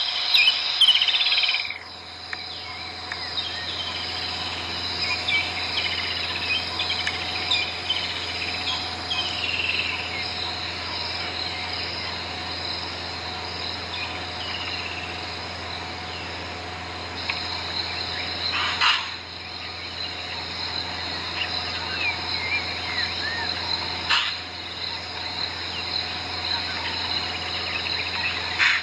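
Steady buzzing of insects with birds chirping now and then, a bush ambience; two brief clicks about five seconds apart in the second half.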